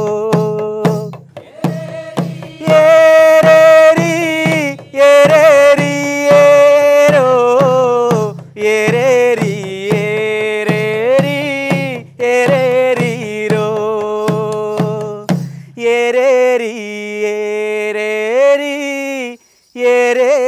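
Malayalam folk song (naadan paattu): a sung melody with long held, wavering notes over a drum beat of about two strokes a second. The drum stops about 16 seconds in and the melody carries on alone.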